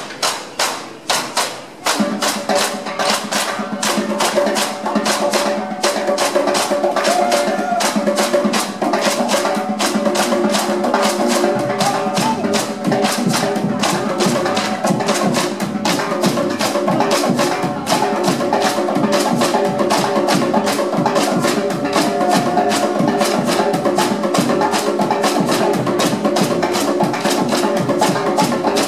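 A percussion ensemble of djembe-style drums playing a fast, dense rhythm together. The playing thins out briefly near the start, then the full group runs on steadily.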